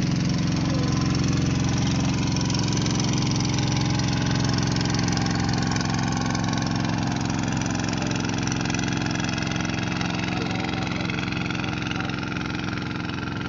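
Small boat engine running at a steady speed, a continuous drone that slowly grows quieter.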